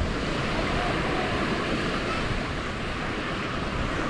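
Steady wash of small waves on a sandy beach, with wind rumbling on the microphone.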